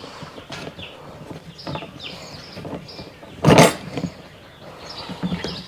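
Hard plastic parts of a chick waterer being handled and fitted by hand: scattered light knocks and rattles, with one louder clatter about three and a half seconds in.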